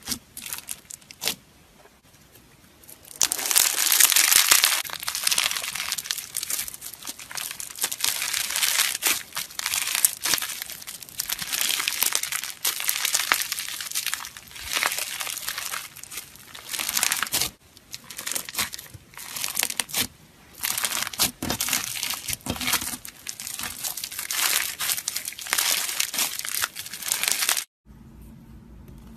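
Hands squeezing and stretching crunchy red slime packed with small beads and sequins: a few scattered clicks, then a dense, continuous run of small crackles. It stops suddenly near the end, leaving a quieter low hum.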